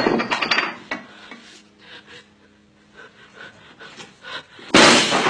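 A person's heavy, gasping breaths: a loud rush of breath at the start and another about five seconds in, with a quiet stretch between.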